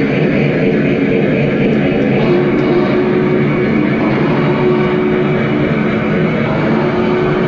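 Lionel VisionLine O gauge model of the Union Pacific Big Boy steam locomotive running on the layout, pulling freight cars; a loud, steady running sound.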